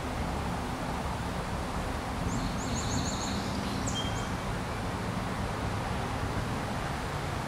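Steady outdoor rumble with a faint low hum. A bird gives a quick run of about six high chirps a couple of seconds in, then one short whistle about a second later.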